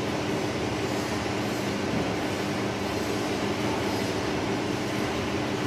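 Keropok lekor rolling machine running steadily, its motor and stainless steel rollers turning with a constant mechanical hum.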